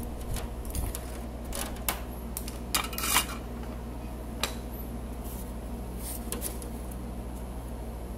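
Short clicks and clinks of small tools and a perfboard being handled and set down on a workbench, the loudest about three seconds in, over a steady low fan hum.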